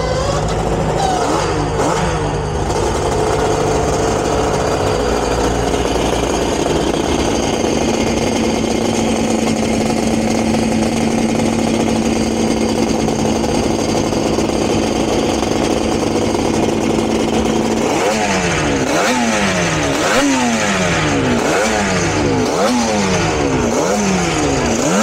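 Four-cylinder two-stroke Grand Prix racing motorcycle engine being warmed up: it is held at steady revs for most of the time, then from near the end it is blipped sharply and repeatedly, about one rev a second.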